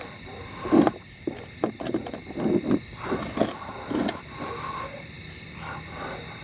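Irregular scrapes and knocks as concrete bricks and a firework cake are shifted and set in place on hard ground, thickest in the first four seconds and fewer after that.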